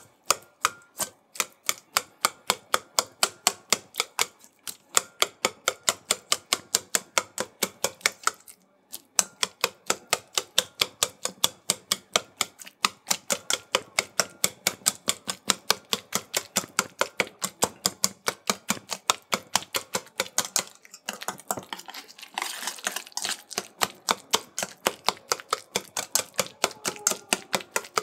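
Wire whisk mashing hard-boiled eggs in a stainless steel bowl: a fast run of sharp metallic clicks, about four a second, as the whisk strikes the bowl, with a few brief pauses and a denser scraping stretch about three quarters of the way through.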